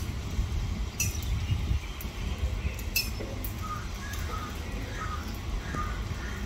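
Outdoor background: a steady low rumble with a few faint short bird calls from about four seconds in, and two sharp clicks about a second and three seconds in.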